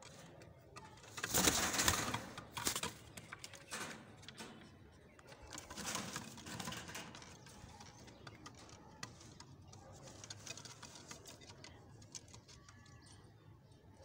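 Dobaz pigeons in a loft: a loud rustling burst about a second in and a softer one around six seconds, with short scratchy clicks between and faint pigeon sounds.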